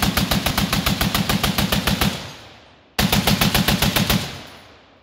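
Browning M2HB .50 BMG heavy machine gun firing full auto in two bursts at roughly nine rounds a second. The first burst runs to about two seconds in; the second, shorter burst comes about a second later. Each burst ends in an echo that dies away.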